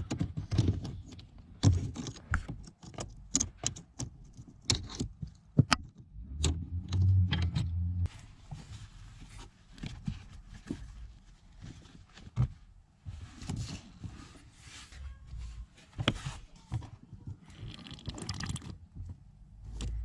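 Hand-work noises at the heater core pipes: a run of sharp clicks and taps from a small screwdriver against the metal pipes and plastic clips, then a rag rubbing over the pipes in the second half.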